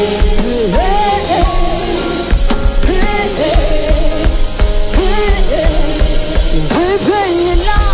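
Worship music: a band with drum kit playing while a voice sings long, sliding melodic phrases.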